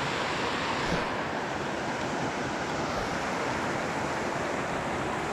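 Shallow river running over rocks and cobbles: a steady rush of flowing water.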